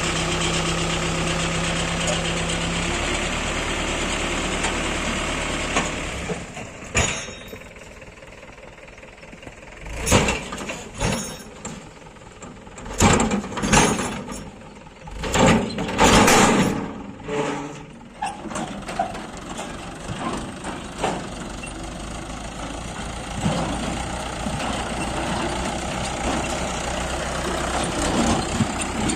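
Diesel engine of a JCB backhoe loader running while it loads mud into tractor trolleys. It drops back about six seconds in, several loud short surges of noise come over the next ten seconds, and then the engine runs steadily again.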